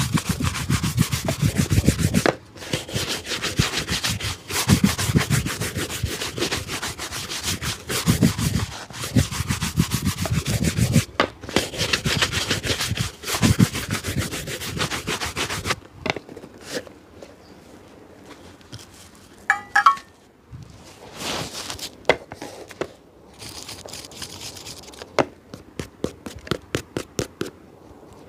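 Hand rubbing and scrubbing on a shoe: fast back-and-forth strokes for roughly the first sixteen seconds, then slower, scattered scrapes and taps with a short squeak near the middle and a quick run of light ticks near the end.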